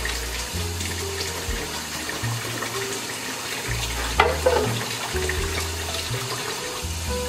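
Kitchen faucet running into a sink, with background music carrying a slow bass line under it. A short knock sounds about four seconds in.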